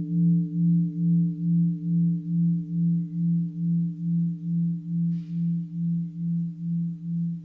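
A mindfulness bell, a bowl-shaped bell struck and left to ring, sustaining a deep tone that pulses about twice a second as it slowly decays, its higher overtones fading out.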